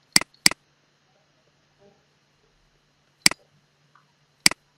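Computer mouse button clicks: two quick clicks near the start, then single clicks about three seconds in and again near the end.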